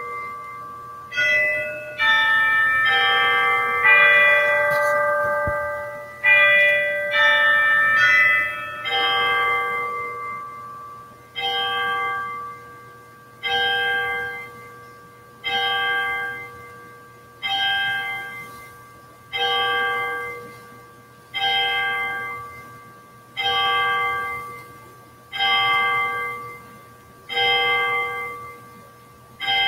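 Church bells chiming a short run of several overlapping notes, then one bell striking slowly, about once every two seconds, each stroke ringing out and fading: the pattern of a tower chime striking the hour.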